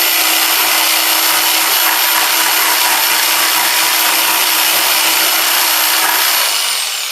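Jigsaw with a 10-teeth-per-inch blade cutting through 3/4-inch plywood, loud and steady with a high motor whine. About six seconds in the saw is switched off and its whine falls as the motor winds down.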